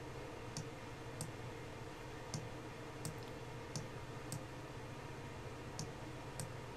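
Computer mouse buttons clicking, about eight or nine short, sharp clicks at irregular intervals as a 3D light's position gizmo is clicked and dragged, over a faint steady hum.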